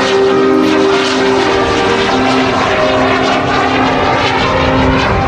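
Jet sailplane in flight overhead, its small jet engine running as a steady rush of noise with held tones.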